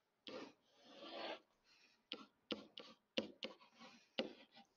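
Faint scratching and light taps of a stylus writing digital ink, in a run of short strokes.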